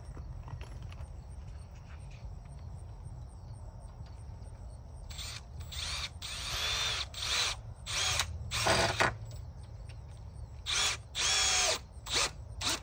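Cordless drill driving screws into a wooden post and beam, in a string of short bursts starting about five seconds in, the motor's pitch sliding as each screw bites.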